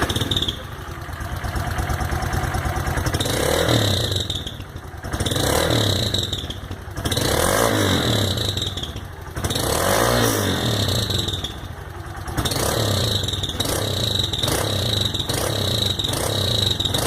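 150 cc motorcycle engine breathing through a Roncar ML Competition aftermarket exhaust. It idles briefly, then is revved in four long blips of a second or so each. From about twelve seconds in it is blipped quickly and repeatedly, well under a second apart.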